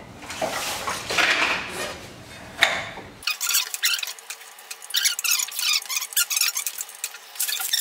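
Hand tools working on an engine in a small garage: a ratchet on the flywheel bolts and light metal clatter and handling noise. About three seconds in, the sound switches abruptly to a thin, high, fast chatter with the bass gone.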